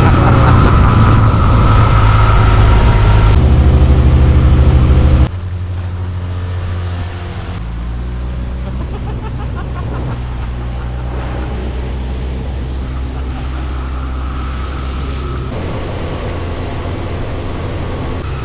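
Small outboard motor running steadily at speed on an inflatable boat. It is loud at first, then changes abruptly at a few cuts and settles into a quieter, steady engine drone from about five seconds in.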